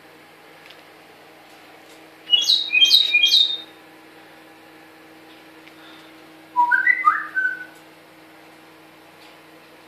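African grey parrot whistling: a quick run of three falling whistles about two seconds in, then a lower phrase of a few stepped notes near the middle.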